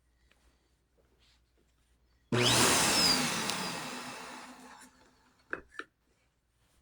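Bissell Powerforce Helix Turbo Pet upright vacuum starts suddenly about two seconds in, then runs and fades away over a couple of seconds as the motor winds down.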